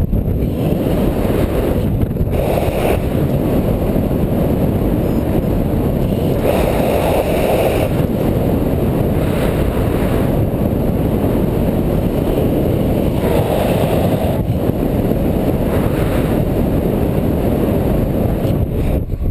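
Steady, loud wind noise from airflow rushing over the camera microphone of a paraglider in flight, swelling slightly a few times.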